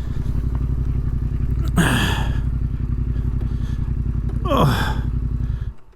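Adventure motorcycle engine running at low, steady revs, then stopping abruptly near the end. Two short falling vocal sounds, like exhales, come over it about two seconds in and again near five seconds.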